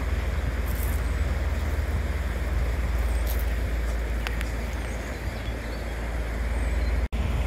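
A river passenger ship's engines running as it sails past close by, a steady low drone. The sound breaks off for an instant about seven seconds in.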